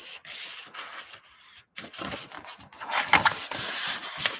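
Page of a large hardcover picture book being turned by hand: paper rustling and scraping, louder and denser in the second half.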